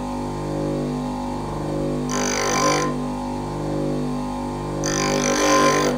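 Wickes bench grinder running with a steady hum while a twist drill clamped in a sharpening jig is fed against the side of the grinding wheel. There are two short passes of hissing grind, about two seconds in and again near the end.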